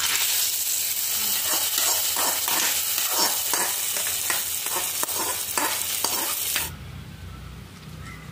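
Hot oil tempering of mustard seeds, dried red chillies, curry leaves and shallots poured into a buttermilk-based mango curry, sizzling loudly with a quick run of crackles. It cuts off suddenly about six and a half seconds in.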